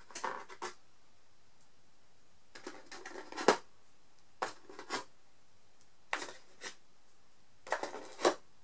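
Small metal jewellery pieces and pliers clicking and tapping as they are handled and picked up, in short bursts every second or so, the loudest about three and a half seconds in.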